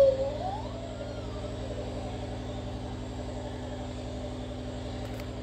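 A steady low mechanical hum, like a motor or engine running, holds level throughout. Right at the start a voice slides down in pitch and back up.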